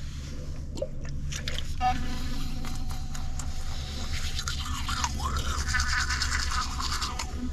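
Teeth being brushed with a toothbrush: quick repeated scrubbing strokes of the bristles, over a steady low hum.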